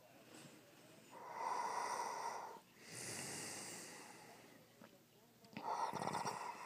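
Heavy snoring: a rough, rattling snore about a second in, a breathy hiss after it, and another rattling snore near the end.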